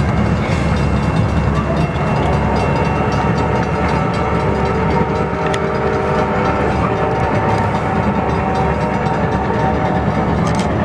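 Reading T-1 4-8-4 steam locomotive 2102 working hard up a steep grade: loud, fast exhaust and heavy running rumble of the train. In the middle, several steady tones are held together for about five seconds, like the locomotive's steam whistle sounding.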